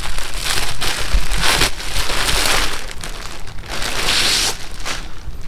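Clear plastic bag crinkling and rustling in several spells as a motorcycle seat is pulled out of its wrapping.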